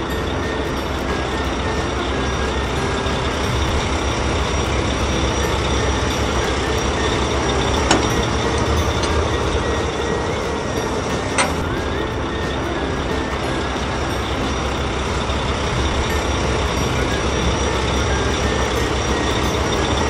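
Heavy construction machine engine running steadily with a low rumble, the sound of a backhoe loader digging a trench. Two sharp clicks come partway through.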